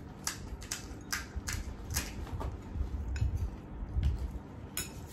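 Eating noises: about ten sharp, irregular cracks and crunches of crisp golgappa (pani puri) shells being broken and chewed, over a low rumble.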